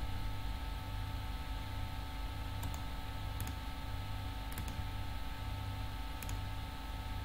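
Four single computer mouse clicks, spaced irregularly over a few seconds, over a steady low electrical hum.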